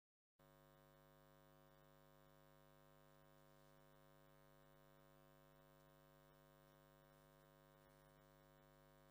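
Near silence with a faint, steady electrical mains hum, which cuts in abruptly about half a second in after dead silence.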